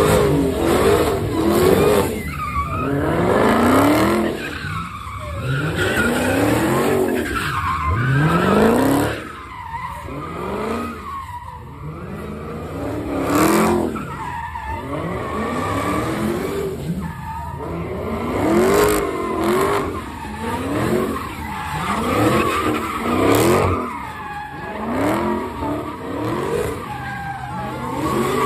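Dodge Charger SRT's V8 revving up and down over and over during donuts, with the spinning rear tires squealing and skidding on the pavement.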